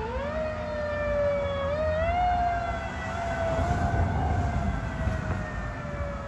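Fire truck siren sounding as the apparatus passes. Its pitch sweeps up quickly twice, once at the start and again about two seconds in, and slowly falls away after each rise, over the low rumble of the truck.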